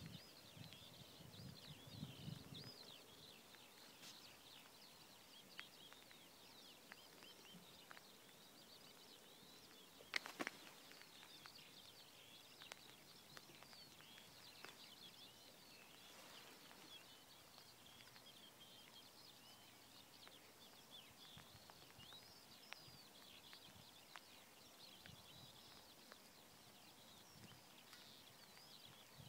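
Faint distant songbird chorus: many small birds chirping and twittering high-pitched throughout. A single sharp click about ten seconds in, and a low rumble in the first couple of seconds.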